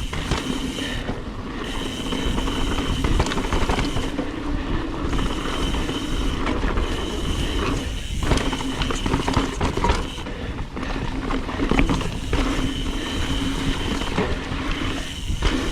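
Mountain bike ridden fast down dirt singletrack: tyre noise, chain and frame rattle and wind on the camera mic, with a high steady freehub buzz that breaks off and starts again several times as the rider alternates between coasting and pedalling.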